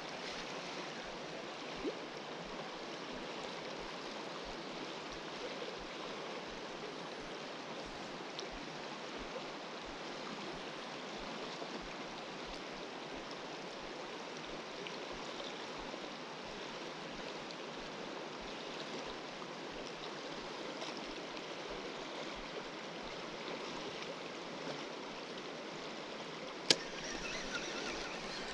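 A river running high, making a steady rush of flowing water. There is a small tick about two seconds in and a single sharp click near the end.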